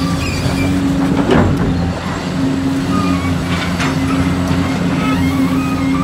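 Diesel engine of heavy earthmoving equipment running steadily, with a couple of short knocks, one about a second and a half in and another near the middle.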